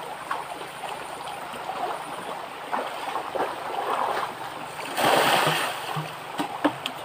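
Forest stream water running with splashing from people bathing in it; a louder splash about five seconds in, and a few sharp knocks near the end.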